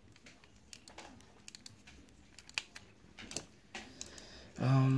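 Light, irregular clicks and taps of the plastic parts of a knockoff Masterpiece Smokescreen Transformers figure being handled and fitted by hand. A short hum from a voice near the end is the loudest sound.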